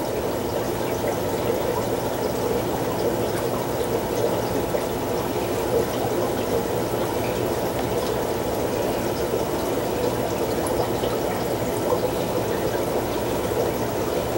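Steady trickling, running-water noise with a faint low hum under it, unchanging throughout, typical of aquarium filtration running.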